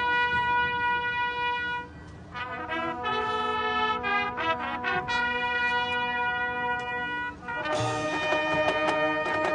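Marching band brass section playing held chords that break off briefly about two seconds in, then move through shorter, faster notes. Near the end, drums come in and the full band gets louder.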